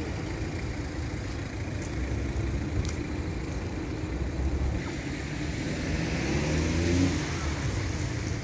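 Street traffic on a wet road: car engines running, with a vehicle speeding up and passing about six to seven seconds in, its tyres hissing on the wet surface.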